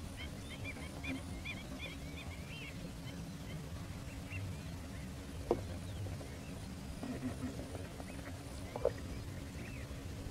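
A large flock of ducks calling, many short chirping calls overlapping, densest in the first few seconds and thinning out after, over a steady low rumble. Two brief knocks stand out, one midway and one near the end.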